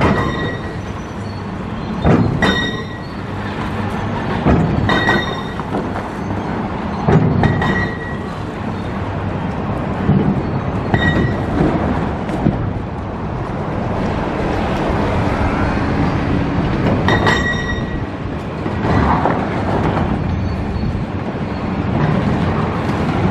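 Steady rumble of traffic and heavy machinery at a demolition site, with about half a dozen ringing metal clanks a few seconds apart.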